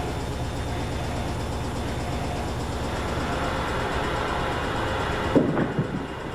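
Laundrette washing machine running with a steady low hum that grows a little louder, then a sudden heavy thump about five seconds in, followed by a few smaller knocks.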